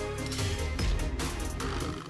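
Edited-in background music with a driving beat and heavy bass hits.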